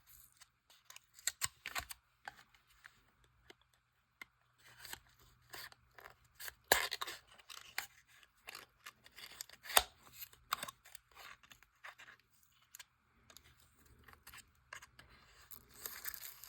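Small plastic and foil handling: scattered sharp clicks, snips and brief crinkly scrapes as a package of nail transfer foil is opened and unrolled.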